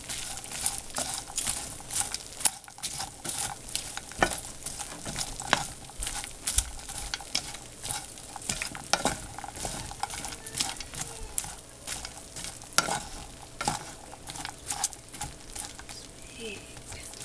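A wooden spatula stirring popcorn in a frying pan, with irregular scrapes and knocks against the pan over a light sizzle from the melted Skittles and butter coating the popcorn.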